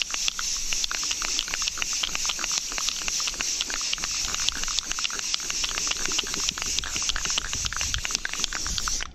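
Aerosol spray paint can hissing steadily as the nozzle is held down, cutting off near the end.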